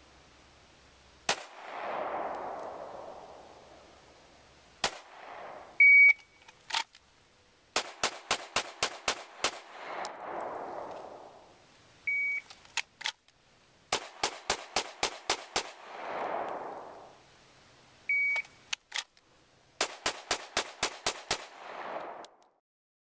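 Smith & Wesson M&P pistol in .357 SIG fired in three rapid strings of about six shots each: Bill Drills. Each string follows a short electronic start beep, and a long wash of echo follows most shots.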